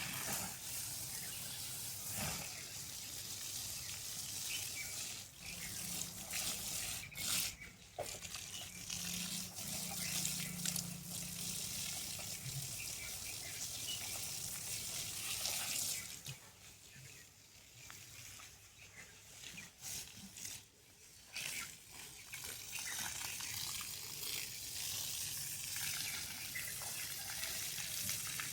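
Running water, a steady hiss that drops away for several seconds past the middle, with scattered clicks.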